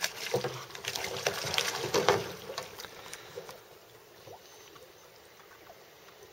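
Water splashing hard as a person tips out of a kayak into the lake, with many quick slaps and splashes. After about three and a half seconds it dies down to faint trickling and lapping around the swimmer and the hull.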